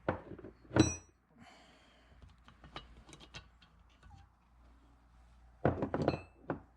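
Small steel valvetrain parts from a cylinder head clinking and knocking against metal as they are handled and set down. Two sharp ringing knocks come at the start, then light clicks, then a quick cluster of ringing clinks near the end.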